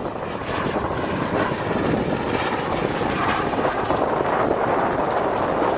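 Mi-8T helicopter flying low, its main rotor and twin turboshaft engines running steadily and loud.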